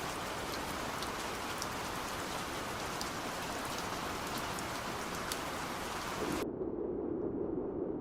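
Rain falling, with separate drops heard over the steady hiss. About six seconds in, the high end cuts off suddenly, leaving a muffled, low rain hiss as if filtered.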